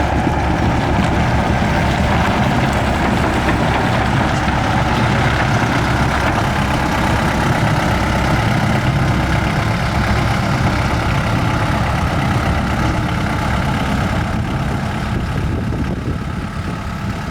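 Diesel engine of a Takeuchi TL230 tracked skid steer running steadily, its level easing a little near the end.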